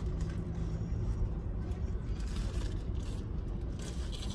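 Steady low rumble of a car idling, heard from inside the cabin, with faint chewing.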